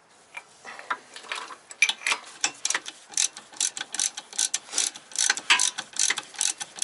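Hand ratchet wrench clicking in quick short strokes, about four or five clicks a second, as a bolt at the engine mount is turned. The clicking grows loud about two seconds in.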